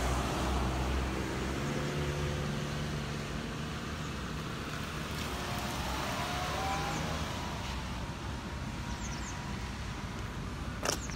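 Street traffic: a passing car's engine hum and road noise, loudest at the start and fading away over several seconds, with a single sharp click near the end.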